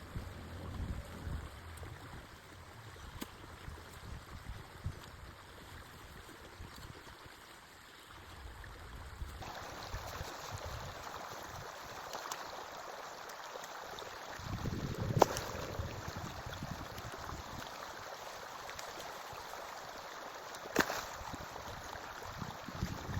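Forest stream flowing steadily, a constant rushing of water. Two sharp knocks stand out in the second half.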